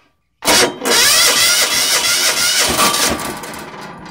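Electric starter cranking the cold diesel engine of a Craftsman GT6000 garden tractor: a short crank about half a second in, then a longer one that fades near the end. It is a cold start at −6 with the glow plug preheated and the engine not plugged in.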